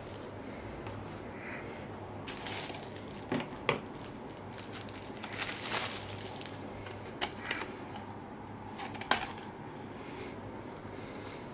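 Clear plastic packaging rustling and crinkling as it is handled, with a few sharp clicks and taps, over a low steady hum.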